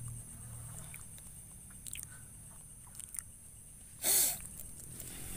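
A steady high drone of night insects with a low hum beneath, a few faint ticks, and one short, loud breath from a person a little after four seconds.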